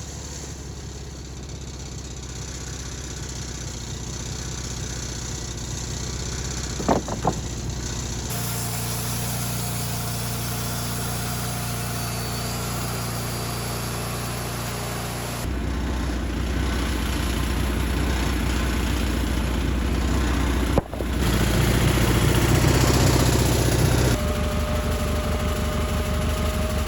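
Engine running steadily at low speed, its pitch and level shifting abruptly three times. Two short clicks come about seven seconds in.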